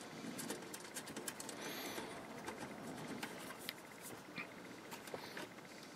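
Faint, irregular small metal clicks and scrapes as a nut is tightened onto a bolt during hand assembly of an inverter's circuit board.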